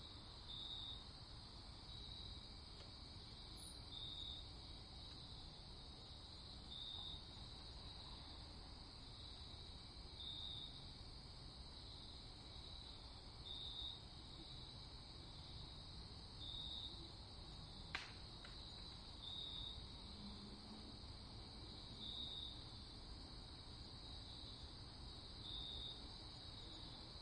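Faint, steady, high-pitched trill that swells into a brighter pulse about every three seconds, over a low background rumble. A single sharp click comes about two-thirds of the way through.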